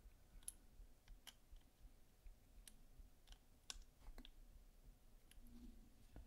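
Faint, scattered clicks of a folding knife and small tools being handled during reassembly, about eight or nine taps spread irregularly over a few seconds.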